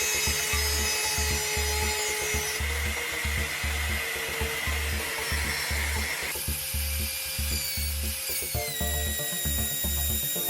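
A power tool's motor runs with a steady whine, its pitch shifting abruptly about six seconds in and again near nine seconds, over background music with a regular low beat.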